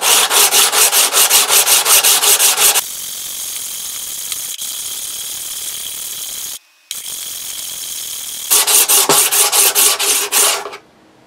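A small stone being lapped on a diamond sharpening plate: fast back-and-forth rasping strokes, about five a second, grinding a flat face onto the stone. In the middle the strokes blur into a steadier, even rasp with a short break, then the quick strokes return before stopping near the end.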